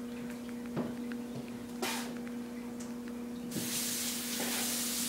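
A steady low hum with a few light knocks, then a steady hiss that begins about three and a half seconds in and keeps on.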